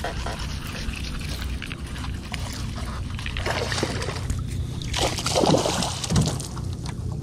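Water splashing and sloshing as a hooked fish thrashes at the surface beside a boat while it is reeled in, louder in the second half.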